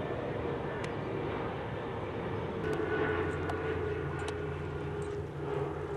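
A steady engine drone over outdoor background noise, becoming stronger and more tonal about two and a half seconds in, with a few faint clicks.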